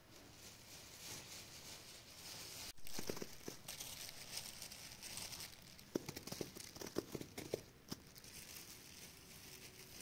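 Fresh damask rose petals rustling faintly as they are spread and dropped by hand onto a cloth sheet, with many soft light ticks. There is a brief break about three seconds in, after which the rustling is closer and more distinct.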